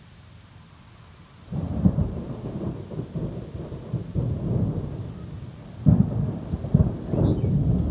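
Thunder: after a quiet second and a half a loud low rumble starts suddenly and rolls on, with a sharper clap about six seconds in.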